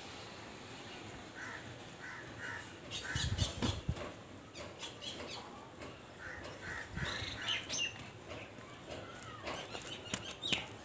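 Birds squawking in short repeated calls. A few dull thumps about three to four seconds in, the loudest sound, as a person rolls down out of a shoulder stand onto the ground.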